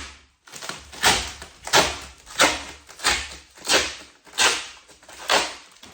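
Protective plastic film being torn off a kitchen cabinet door in a series of quick pulls, about one every two-thirds of a second, each a short tearing rip.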